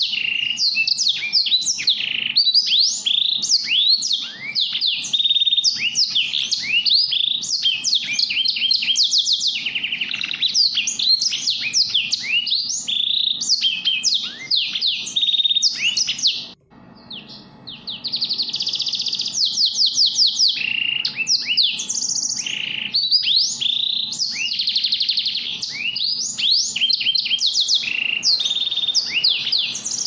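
Caged finches chirping and trilling in a dense, continuous run of rapid sweeping notes, breaking off for a moment about 17 seconds in.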